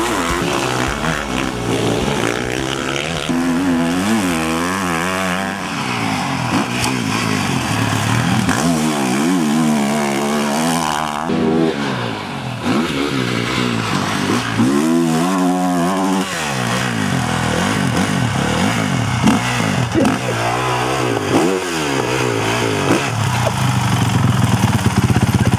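Motocross dirt bike engines revving up and dropping off again and again as they ride the track, the pitch climbing and falling in several surges, with a steadier engine note near the end.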